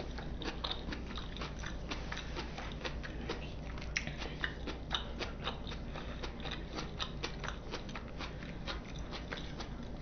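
Close-miked chewing of sushi: steady wet mouth clicks and smacks, several a second.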